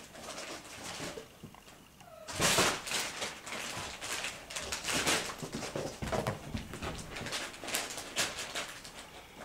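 Ragdoll kittens play-fighting on a fabric sofa: irregular scrabbling, rustling and soft thumps of paws and claws on the upholstery, loudest about two and a half seconds in.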